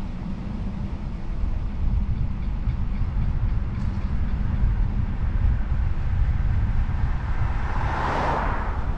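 Wind buffeting a handlebar-mounted action camera's microphone, with rolling road rumble from a bicycle coasting downhill at speed. A rushing swell rises and fades near the end.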